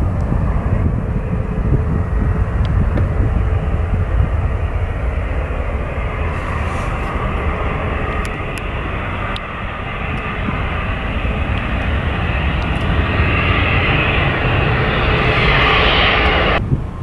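Bombardier Global 5000 business jet on approach, the noise of its twin turbofan engines building steadily and growing louder and higher-edged as it closes in overhead, then cutting off abruptly near the end.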